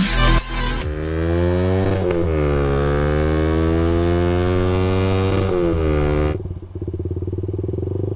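Electronic dance music cuts off about a second in. Then a Suzuki Satria FU's 150 cc single-cylinder four-stroke engine runs under way, its pitch dipping and then climbing again. About six seconds in it drops to a quieter, lower, pulsing note.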